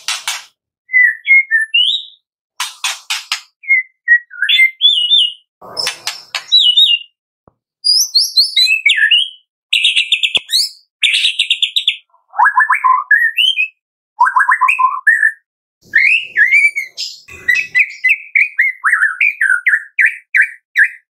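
White-rumped shama singing: loud, varied whistled phrases and fast trills, broken by short harsh rasping notes and brief pauses between phrases.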